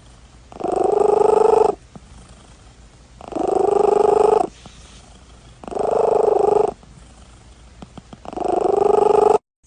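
A cat purring loudly in four pulsing spells of about a second each, with quieter pauses between them.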